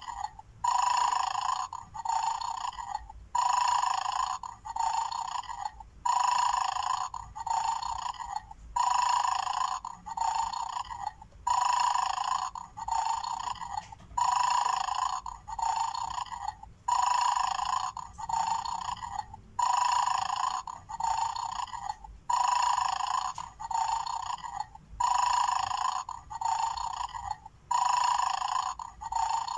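Electronic snoring sound from a Mad Dog bone-game toy, played as a loop through its small built-in speaker: an even, repeating burst about once a second, the toy's sleeping-dog sound before it is set off.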